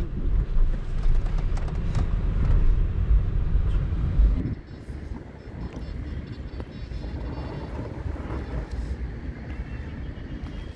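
Low rumble of an Audi Q8 55 TFSI quattro crawling over rough dirt, heard from inside the cabin. About four seconds in it drops abruptly to a quieter, even outdoor sound of the SUV working slowly up a dirt mound.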